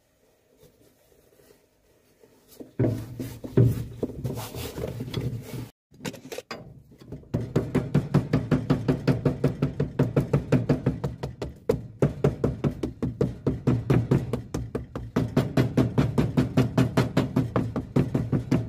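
Cobbler's hammer rapidly tapping a glued leather midsole onto a shoe, about five even knocks a second with a couple of brief pauses, to set the glue bond. Before the hammering starts, about seven seconds in, there are a few seconds of irregular handling noise as the sole is pressed on by hand.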